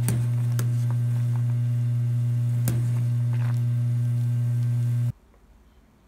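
Loud steady electrical hum, low and even, with a few light metallic clinks as a wire-mesh strainer knocks against an aluminium pot. The hum cuts off suddenly about five seconds in.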